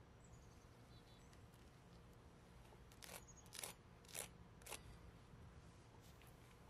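Four short, crisp crunches about half a second apart, a little after halfway through: a fork breaking through the crisp deep-fried crust of a falafel ball.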